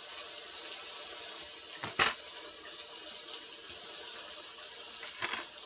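Steady hiss of rain in the background, with two sharp clicks about two seconds in and a fainter one near the end from handling a plastic DVD case and disc.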